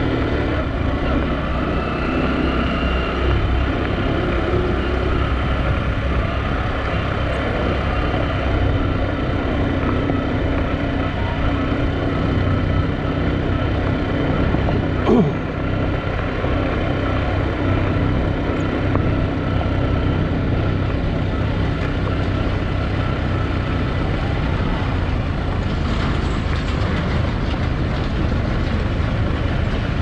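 A vehicle travelling steadily along a road: a constant engine drone with road noise. A brief sharp sound stands out about halfway through.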